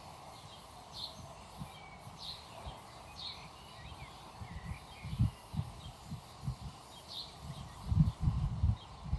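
Birds chirping, short high chirps about once a second with a few gliding calls, over faint background noise. Low dull knocks come in the second half, most of them near the end.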